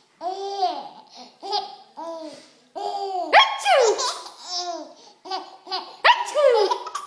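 Nine-month-old baby laughing heartily in a string of short squealing bursts, each one falling in pitch.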